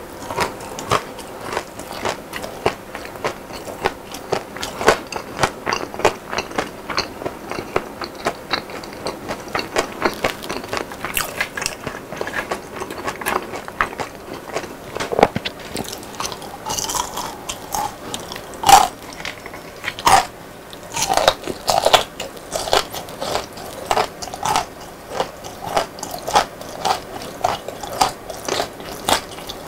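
Close-miked chewing of crispy fried chicken and battered fried squid: a dense run of sharp, crackly crunches with wet chewing between them, loudest about two thirds of the way through.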